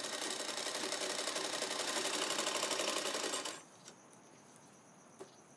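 Black domestic sewing machine stitching cloth: a fast, even mechanical clatter of needle and mechanism that stops suddenly about three and a half seconds in. After it come a faint click or two and a faint steady high-pitched tone.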